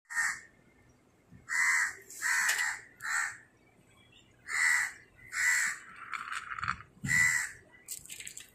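A crow cawing over and over, about eight short caws coming irregularly, less than a second apart.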